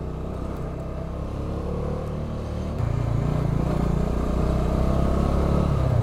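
Motorcycle engine running under way. About three seconds in the throttle opens: the engine gets louder and its pitch climbs slowly as the bike accelerates.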